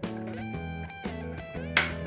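Background music: plucked guitar notes over a steady bass.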